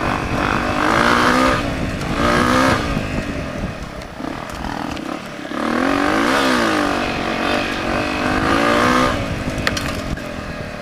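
Honda CRF250 single-cylinder four-stroke dirt bike engine revving up and down as the throttle is opened and closed on a trail. The revs swell several times, the longest rise and fall coming in the middle, then the engine note fades away near the end.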